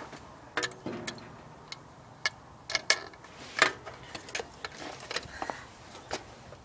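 Irregular sharp clicks and light knocks, about nine in all, from hands working on parts of a riding lawnmower's engine compartment. The engine is not running.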